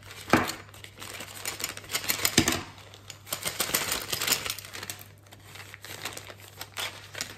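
A plastic pouch rustling and crinkling as it is handled and tipped out. Small plastic tools clatter and click onto a wooden table in irregular taps.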